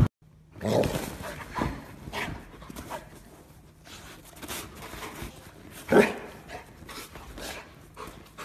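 A dog making short, scattered vocal sounds, the loudest about six seconds in.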